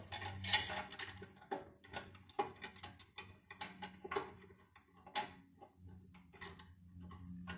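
Irregular light metal clicks and knocks from an old C-clamp being worked on a rear brake caliper to press the piston back, over a low steady hum.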